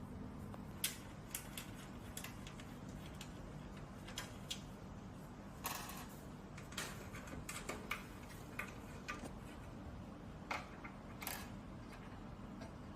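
Irregular clicks and light taps from hands working on an aluminium and tempered-glass PC case as its side panel is opened, about a dozen sharp ticks spread unevenly over a steady low hum.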